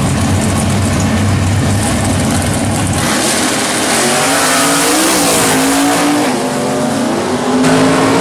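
Drag-race cars at the starting line, their big engines running. About three seconds in, the engine sound changes abruptly to louder, higher revving that rises and falls.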